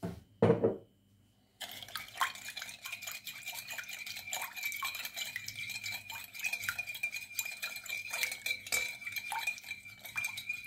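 A knock right at the start, then from about a second and a half in a metal spoon stirring yeast and sugar into warm water in a ceramic bowl, clinking and scraping rapidly against the bowl over a steady high ring.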